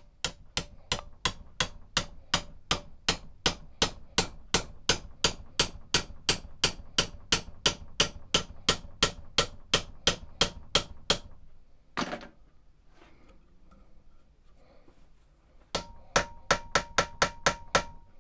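Hand hammer tapping steadily on a glued crossbow-bayonet handle assembly clamped upright in a bench vise, knocking the parts together. About three blows a second for some eleven seconds, then one lone blow, then a quicker run of about ten blows near the end with a ringing note under them.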